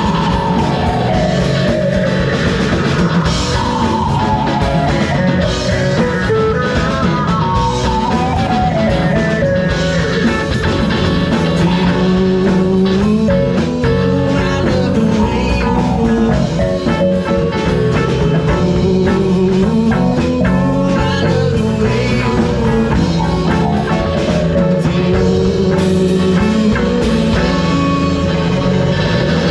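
Folk rock band playing an original song, with guitar and drum kit. The lead line slides down in pitch several times.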